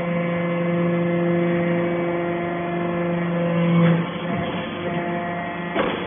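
Hydraulic pump and motor of an aluminium-chip briquetting press humming steadily. The hum swells just before four seconds in and then stops, leaving a duller machine noise, with a sharp knock near the end.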